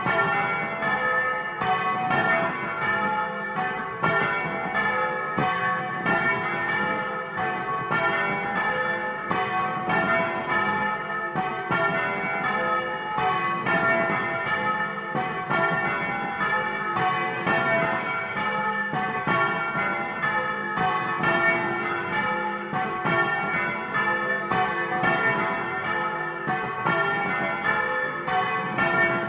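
Several bronze church bells swung by hand on ropes, ringing in a steady, unbroken stream of overlapping strikes, about two or three a second, heard close up inside the belfry.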